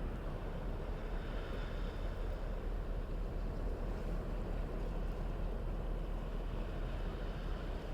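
Steady rushing noise with a strong low rumble, even throughout, like wind or running water.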